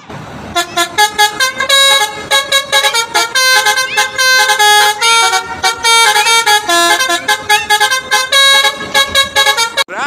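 Telolet multi-tone bus horn playing a loud, quick tune of many short notes that step up and down in pitch. It starts about half a second in and stops just before the end.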